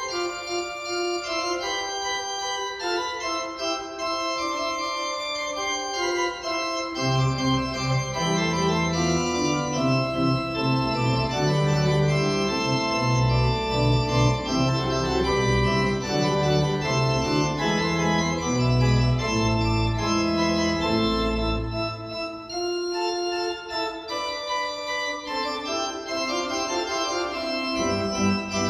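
Church organ playing sustained chords. Deep pedal bass notes come in about seven seconds in, drop out a little past twenty seconds, and return near the end.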